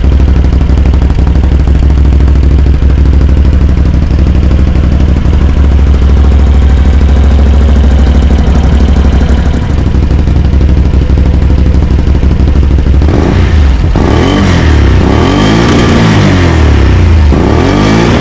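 Can-Am Outlander MAX 850's V-twin engine, fitted with a Dominator slip-on exhaust, idling steadily and loudly. About two thirds of the way in, it is revved up and back down twice.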